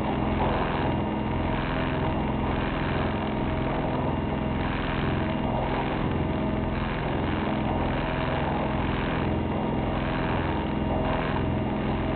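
A sailboat's auxiliary engine running steadily under way, a constant drone with an even pulsing beat.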